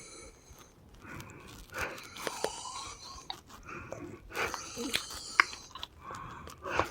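Labored, wheezing breaths, about four in a row, with a few sharp clicks among them. The wheezing persists after her last breathing treatment, which the recorder takes as a sign that something may be going on.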